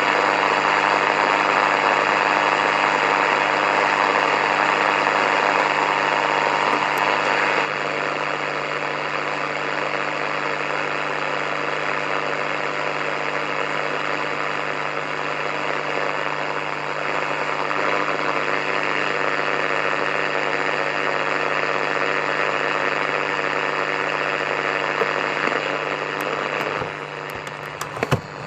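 Radio static between stations: a steady hiss with a low hum under it, dropping a little in level about eight seconds in, with a few crackles and clicks near the end.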